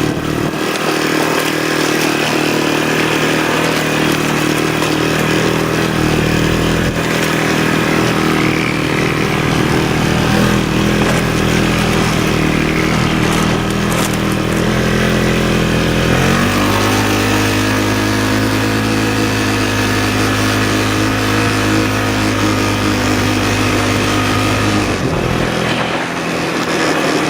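Quad (ATV) engine running steadily under way. Its note steps to a different steady pitch about two-thirds of the way through and shifts again near the end.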